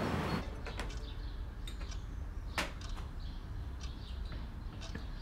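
Background music cuts off about half a second in. After it comes a low steady room hum with scattered light clicks and knocks, one sharper than the rest about two and a half seconds in.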